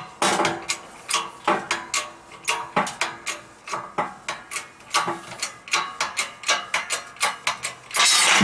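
20-ton hydraulic shop press being pumped by hand, a sharp metallic clack about three times a second, as its ram forces the crank pin out of a Yamaha XS650 crankshaft flywheel. About eight seconds in, the flywheel half breaks free off the pin with a loud sudden crack and clatter.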